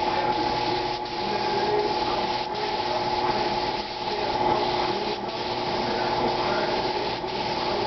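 Compressed-air gravity-feed paint spray gun hissing steadily as it sprays paint onto a car body, with a few brief breaks, over the steady hum of a motor.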